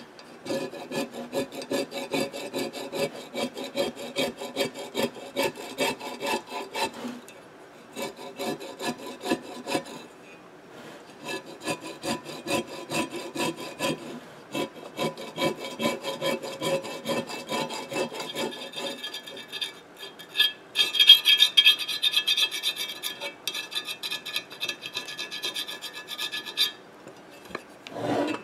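Rapid hand rubbing and scraping strokes on a loudspeaker basket, cleaning the old foam surround residue off its rim, with a few short pauses. Partway through, the strokes turn brighter and louder, then stop shortly before the end.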